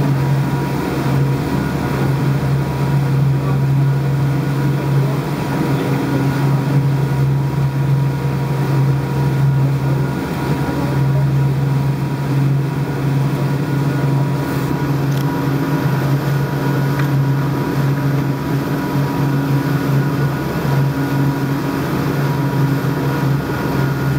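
Boat engine running steadily: a constant low hum with a few fainter steady tones above it.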